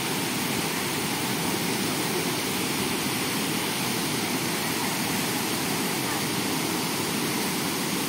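Small waterfall pouring over boulders into a pool: a steady rush of falling water.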